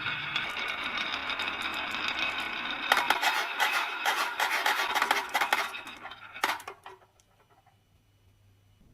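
Glass marbles rolling down a wooden marble run track with a steady rumble, then about three seconds in a burst of clicking and clattering as they knock against the wood and each other, thinning out to a last few clicks and dying away.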